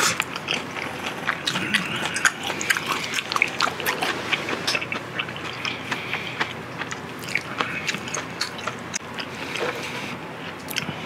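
Close-miked chewing of marinated pork galbi: a dense run of small, irregular mouth clicks.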